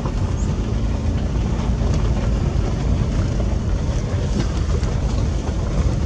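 Car driving on a rough dirt road, heard from inside the cabin: a steady low rumble of tyres and engine, with a few small knocks from the uneven surface.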